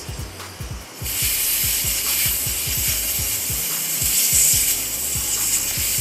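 Air hissing steadily out of a car tire through the open valve stem as the valve core is unscrewed, deflating the tire. The hiss starts suddenly about a second in.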